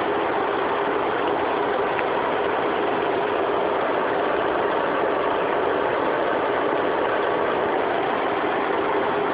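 1994 Proton Saga's 1.5-litre four-cylinder engine running steadily at a constant speed, with a steady hum and no revving.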